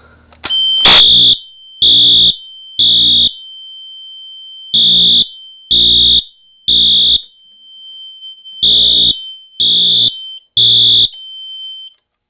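Wheelock fire alarm horn sounding in the code-3 temporal pattern: three short loud blasts, a pause of about a second and a half, then three more, three times over. A sharp click comes as the first blast starts, and a steady high tone runs underneath until just before the end.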